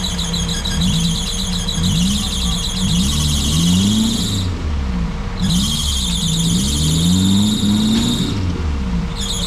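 Motor and gears of a radio-controlled scale crawler whining, its pitch rising and falling over and over as it is throttled up a muddy slope. A high, rapidly pulsing sound goes on above it and stops briefly twice.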